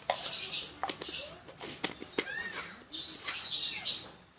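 Small birds chirping and twittering in quick high bursts, with a few sharp clicks among them.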